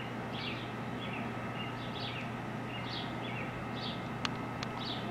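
Short, high bird chirps repeating about twice a second over a steady low hum, with two sharp clicks close together near the end.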